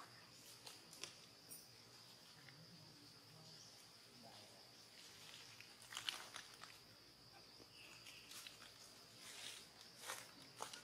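Faint quiet ambience: a steady high-pitched hum, with scattered soft clicks and crackly rustles that bunch up about six and ten seconds in.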